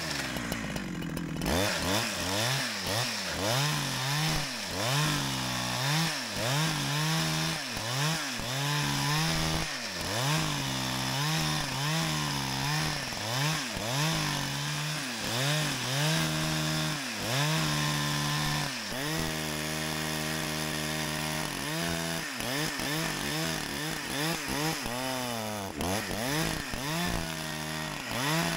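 Two-stroke chainsaw ripping lengthwise along a spruce log. The engine pitch dips and recovers over and over, about once a second, as the bar is pushed into the cut and eased off. It holds steadier for a few seconds past the middle.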